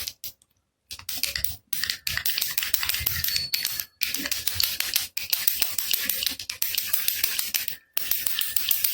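Baby rattle shaken steadily, a dense rapid rattling of many small clicks, stopping for about half a second shortly after the start and breaking off briefly a few more times.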